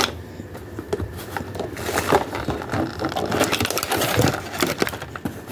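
Handling noise from rummaging through gel nail polish bottles in a cardboard box: a close, irregular run of small clicks, taps and rustles.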